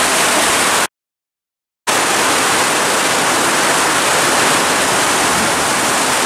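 Heavy rain in a steady downpour, a dense, even hiss. It cuts out to total silence for about a second just after the start.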